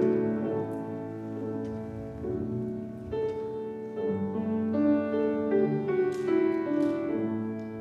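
Soft piano music playing slow, sustained chords.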